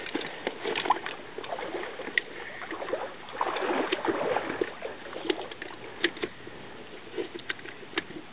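Rustling and scattered light clicks of a life vest being pulled on and its plastic strap buckles fastened.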